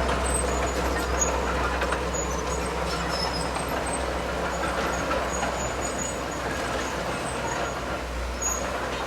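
Heavy diesel earthmoving machinery running steadily, with a constant low engine drone under a noisy mechanical haze.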